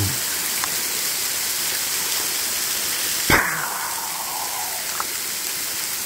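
Steady rush of a waterfall splashing onto rock, with a single sharp knock about three seconds in.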